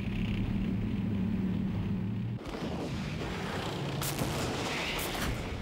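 Tank engine running steadily as the tank drives, then the tank's main gun fires with sharp reports about four and five seconds in.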